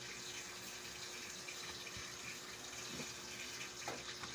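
Steady rushing background noise with a faint steady hum, and a couple of light knocks near the end.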